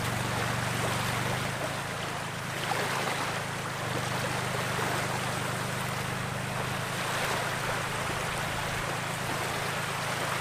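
Wind-driven waves washing steadily against a sandy reservoir shore, over a steady low hum.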